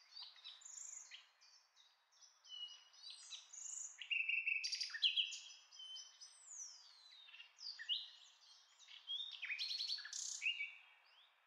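Songbirds chirping and singing: scattered groups of short chirps and quick whistled glides.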